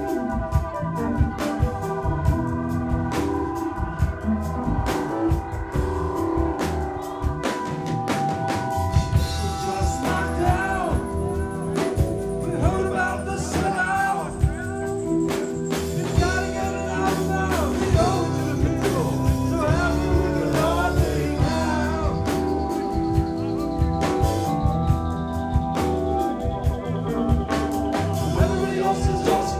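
A live rock band jams on electric guitar, bass, drum kit and keyboards: held keyboard chords with steady drum hits and a wavering lead line. A thin high tone slides slowly downward through most of it.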